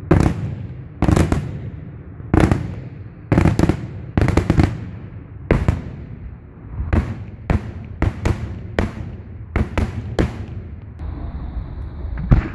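Daytime aerial fireworks shells bursting overhead: about twenty loud bangs in irregular succession, some in quick clusters of two or three. Near the end a high steady whistle sounds, followed by one last loud bang.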